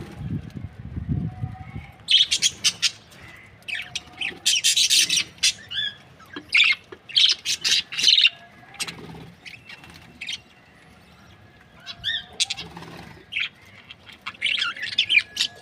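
Budgerigars chirping in quick, busy bursts, with a lull of about two seconds past the middle before the chirping picks up again. A low rumble sits under the first second or so.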